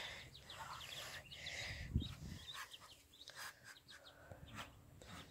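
Muscovy ducklings peeping with many short, high chirps. A single low thump comes about two seconds in.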